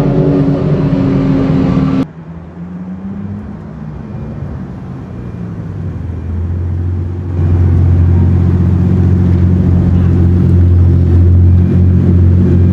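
Exotic sports car engines at a track, heard across edited clips. A loud engine note cuts off abruptly about two seconds in, giving way to a quieter engine whose pitch slowly rises. From about seven seconds in, a loud, steady, deep engine drone holds.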